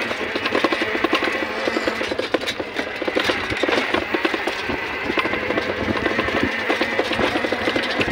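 Motorcycle engine running steadily under way, a rapid even chatter of exhaust pulses.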